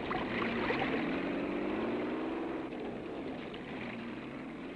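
The Chrysler Marsh Screw Amphibian's engine running under load, its pitch rising, then falling and rising again, over the churning of water from its screw drums.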